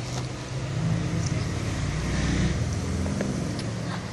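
A motor vehicle's engine running as a low, steady hum, louder for about two seconds in the middle.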